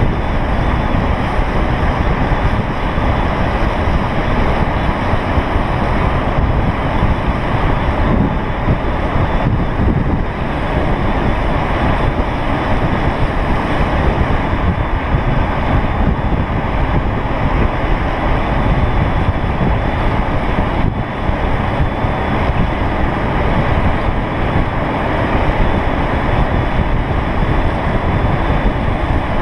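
Steady rush of wind over the microphone at downhill longboarding speed, mixed with the rolling noise of skateboard wheels on asphalt.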